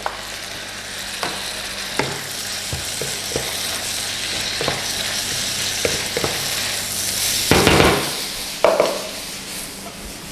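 Grated carrot, shiitake mushrooms and ground chicken sizzling in oil in a nonstick wok, with a wooden spatula knocking and scraping against the pan as it stirs. There is a louder rush of noise about eight seconds in.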